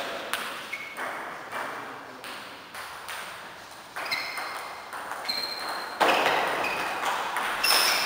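Table tennis rally: the celluloid/plastic ball clicking off the bats and the table at an irregular pace, many hits followed by a short high ringing ping. The hits grow louder in the second half, with a sharp one about six seconds in.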